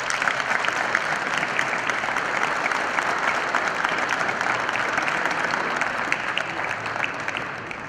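Crowd applauding: many hands clapping, starting suddenly and dying away near the end.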